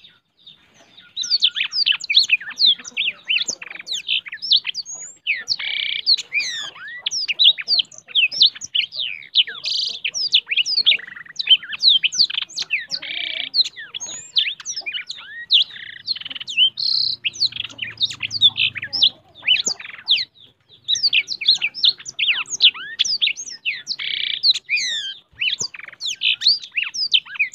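A caged blackshot songbird singing at full volume, a rapid, almost unbroken torrent of quick high downward-slurred notes that starts about a second in, with only a couple of brief pauses.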